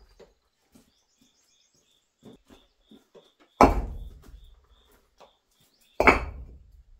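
Hollow concrete blocks set down heavily onto a stack, two loud knocks of block on block, one about halfway through and one near the end, with small scrapes and shuffles between. A faint high chirp repeats about three times a second in the background.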